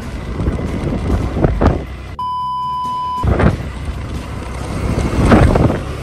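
Motorbike riding along a lane, its running and wind buffeting the microphone, with a few louder gusts. A steady, high, censor-style beep tone sounds for about a second, about two seconds in.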